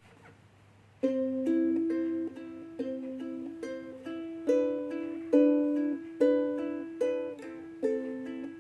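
A solo ukulele comes in about a second in and plays an instrumental introduction. It picks out notes one after another, roughly two a second, each ringing on under the next.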